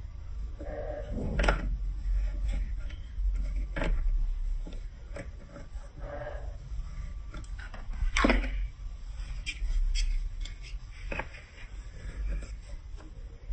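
Irregular clicks and knocks of plastic marble-run building blocks being handled, over a steady low hum.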